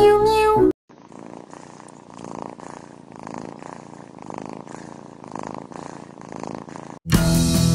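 A kitten purring softly and steadily, swelling and fading with each breath. Music plays briefly at the start and again near the end.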